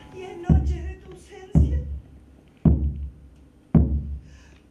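Slow, even beats of a deep drum, about one a second, each a low boom that dies away before the next.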